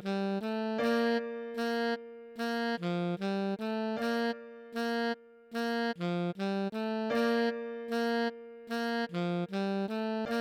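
Alto saxophone melody played slowly at half speed, a string of separate held notes about two a second with short gaps, repeating a short phrase.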